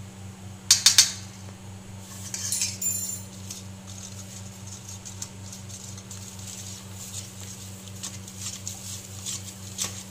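A steel spoon clinking sharply against a steel bowl a few times about a second in, then stirring a thick yogurt-and-spice marinade with soft, wet scraping ticks against the bowl. A steady low hum runs underneath.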